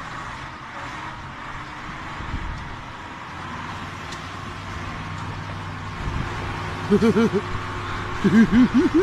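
Heavy off-road logging truck's engine running under load as it fords a deep river, with water rushing and splashing around the cab and load. Short loud calls break in about seven seconds in and again near the end.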